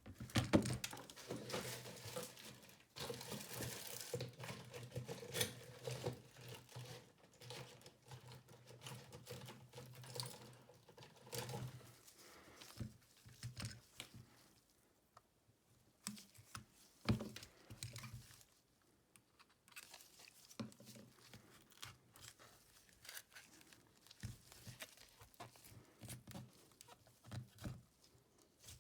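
Close-up handling of a smartphone's back cover: scraping, peeling and crinkling sounds with small plastic clicks and taps from tools, over a low steady hum for roughly the first twelve seconds.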